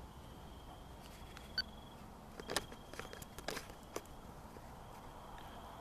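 Faint hiss with a few scattered clicks and knocks from a handheld camera and voice recorder being handled, and a thin, high, steady tone that comes and goes.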